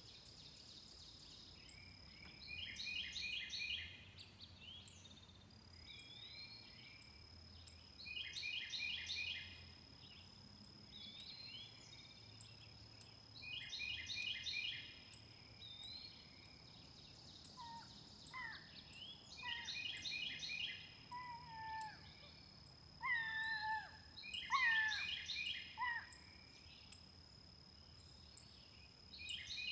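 A songbird singing a short trilled phrase of rapid repeated notes every few seconds, over a steady high insect drone and faint regular ticking chirps. Past the middle, short falling whistled calls join in.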